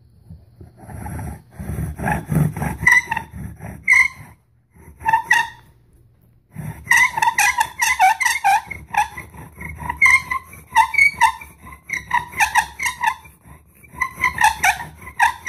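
Bow drill in use: a tamarack spindle spun back and forth in a tamarack hearth board, each stroke of the bow giving a grinding squeak at a steady pitch, while working up an ember by friction. After two short pauses a few seconds in, the strokes settle into a steady run of about two a second.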